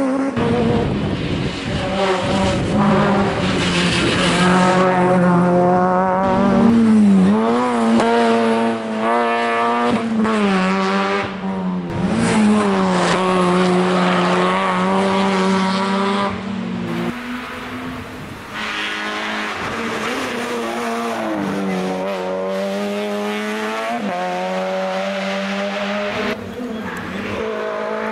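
Rally cars at full attack on a closed stage, their engines revving hard, pitch climbing and dropping sharply through gear changes and braking, with one car following another after a cut about two-thirds of the way in.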